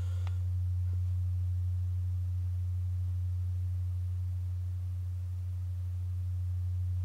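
A steady, deep hum: a single low tone that holds unchanged throughout, with nothing else over it.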